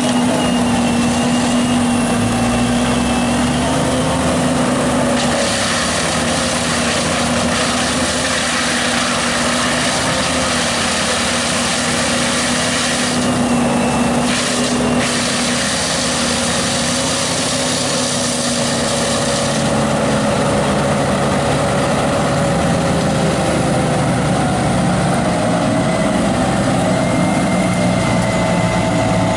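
The engine of tree-removal machinery running steadily at high speed, its pitch wavering slightly, over a continuous rushing noise.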